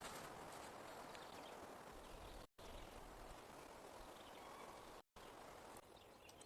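Faint, steady outdoor background hiss with no distinct events, cut off to silence briefly twice, about two and a half and five seconds in.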